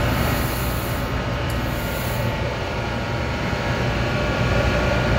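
Powder-coating spray booth's blower and fans running steadily, a continuous rush of moving air with a low hum. A higher hiss rides on top for the first two seconds or so.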